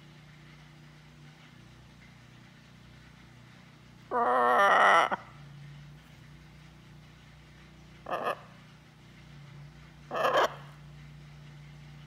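Blue-and-gold macaw calling: one loud, wavering call about a second long, then two short squawks a few seconds apart.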